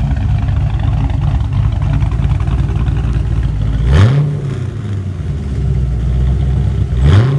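Exhaust of a freshly rebuilt 1989 Ford Mustang 5.0 V8, fitted with a Comp Cams XE270HR-12 camshaft, idling through its dual tailpipes. The throttle is blipped twice, about four seconds in and again near the end, with the engine note rising and falling back each time.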